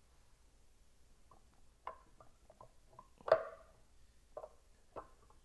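Hard taps and clicks of a polystone statue figure knocking against its base while it is being lined up on a peg, a scattered handful of them with one sharper knock about three seconds in.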